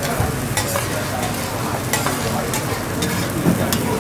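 Chopped food sizzling on a steel teppanyaki griddle while metal spatulas scrape and clack across the plate, with several sharp scraping clicks over a steady sizzle.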